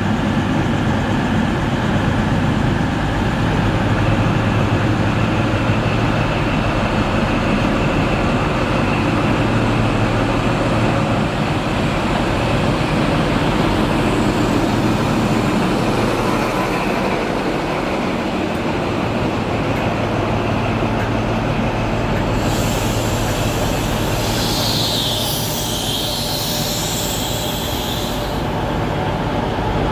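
Diesel HST (InterCity 125) power car 43159 running slowly past as the train draws into the platform, with a steady engine drone. For several seconds near the end there is a high-pitched squeal and hiss as the train slows.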